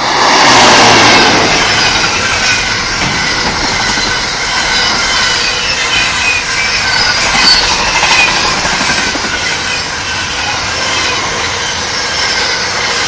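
Intermodal container freight train passing close by at speed. The locomotive goes past with the loudest rush of sound about a second in, then the long string of container wagons rolls by, the wheels clattering on the rails with faint high wheel squeal.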